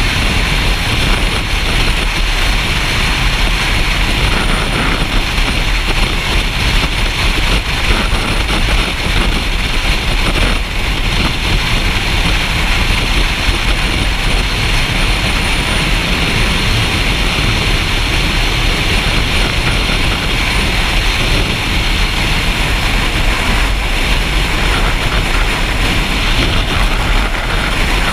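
Motorcycle riding at steady speed: engine and wind noise blended into a constant rush with a deep rumble underneath.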